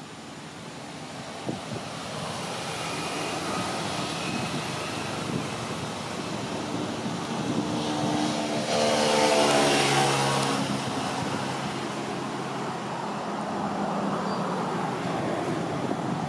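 A motor vehicle driving past: engine and road noise build up, are loudest about nine to ten seconds in with the engine pitch dropping as it goes by, then ease off.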